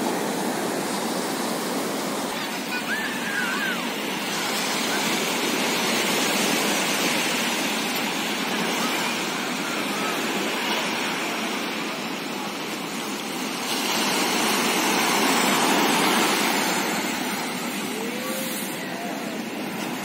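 Sea surf breaking and washing up a sandy beach, a steady rush that swells louder twice: a few seconds in, and again past the middle.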